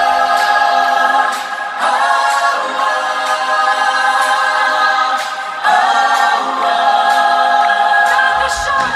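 Live pop concert vocals heard from the crowd: a choir-like chorus of voices singing three long held phrases with no drums or bass underneath, the low end dropping back in just before the end.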